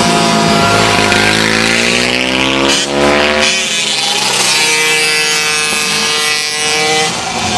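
Small racing motorcycles accelerating through a corner. The engine note climbs for about three seconds, breaks off briefly, then runs on at a steady high pitch.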